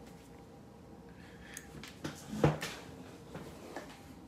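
A few short knocks and one louder thud about two and a half seconds in, over a faint steady hum.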